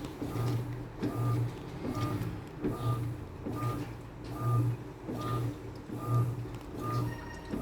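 Electrolux Essential Care washing machine agitating the wash: the motor runs in short repeated pulses, about one a second, each a low hum with a brief higher whine.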